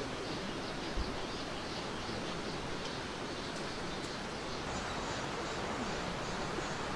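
Mountain stream water rushing steadily, with faint bird calls above it and a soft low thump about a second in.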